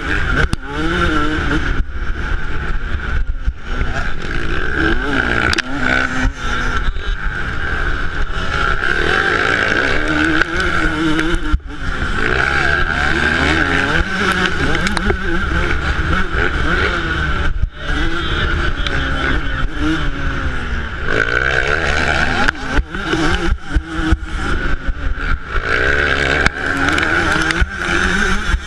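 2008 Yamaha YZ125's single-cylinder two-stroke engine revving up and dropping back again and again as it is ridden hard through the gears, with brief throttle cuts every few seconds. A steady low wind rumble runs underneath.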